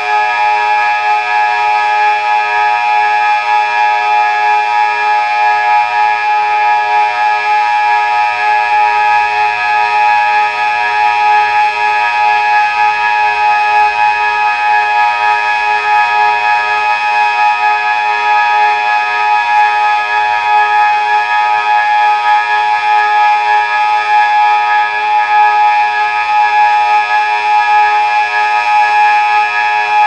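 Delta 6 civil-defence siren sounding a loud, steady tone that holds without rising or falling: the Austrian 'Warnung' signal, which signals approaching danger.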